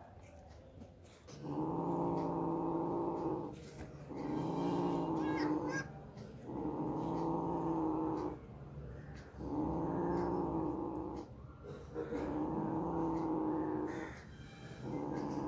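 A cat growling over a piece of fish: six long, drawn-out growling moans of steady pitch in a row, each about two seconds, with short breaks between them.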